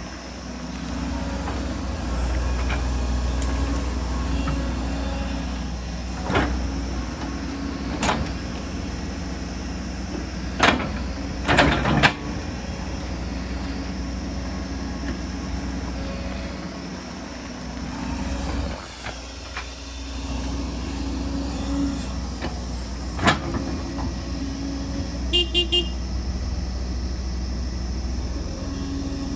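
Excavator's diesel engine running steadily under hydraulic load, with a sharp metallic clank now and then: about five knocks, including a quick cluster around the middle. A brief high squeal comes near the end.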